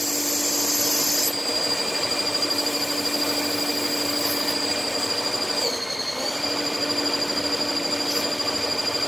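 Haas TL-1 CNC lathe spindle running while a turning tool cuts an AR-15 barrel blank, a steady machining sound with a high whine. The whine dips in pitch briefly about six seconds in and then returns.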